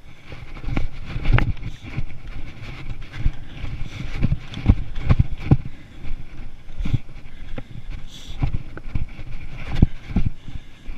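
Footsteps of someone walking fast over the rocks of a narrow ridge: irregular knocks and scuffs of boots on stone, one to three a second, over a low steady rumble.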